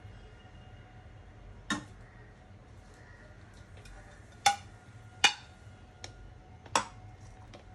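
A kitchen utensil clinks sharply against a bowl four times, unevenly spaced, with a short ring after each. The two clinks in the middle are the loudest.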